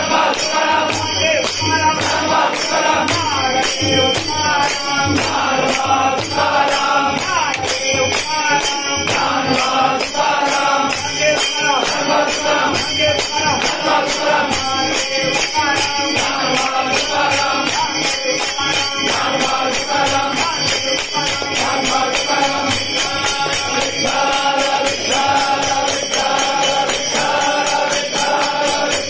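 A crowd of devotees singing a devotional chant together, with hand-clapping and percussion keeping a steady, even beat.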